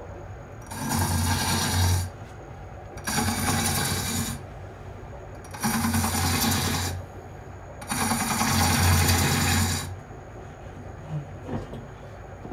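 Steel turning tool being sharpened by hand: four long rasping strokes of the steel edge, each a little over a second, about every two and a half seconds, the last one longer.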